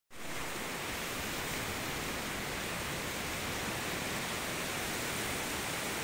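Steady, even rushing noise with no rise and fall and no bird calls heard.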